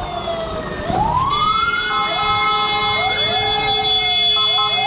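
A siren wailing, its pitch sweeping upward over and over, with overlapping sweeps and steady tones held underneath.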